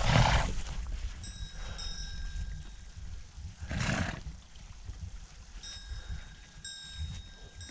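Donkeys blowing air hard through their nostrils close by: two short breathy snorts, one right at the start and one about four seconds in.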